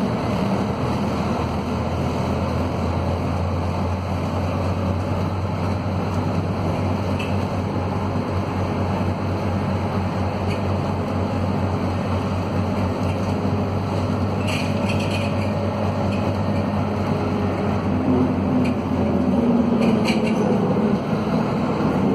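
Scania DC9 five-cylinder diesel of a Scania K230UB city bus pulling steadily uphill, heard from inside the cabin, the bus in the run-down state the uploader calls typical of this fleet. The engine grows a little louder near the end, and brief rattles come about two-thirds of the way through and again near the end.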